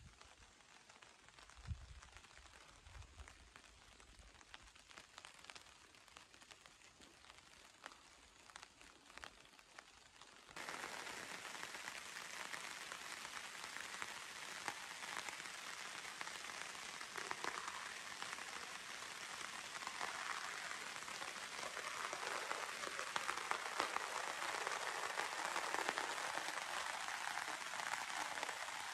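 Rain falling. At first it is light, with scattered drops ticking. About ten seconds in it jumps abruptly to a steady, heavier downpour, which grows louder still toward the end.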